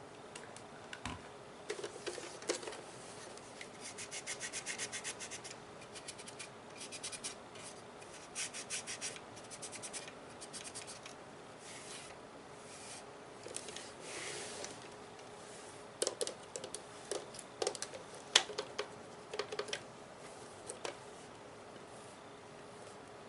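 Scratching and rubbing on the plastic body of a Nerf gun, in quick runs of fine scrapes, then scattered sharp taps and clicks in the second half.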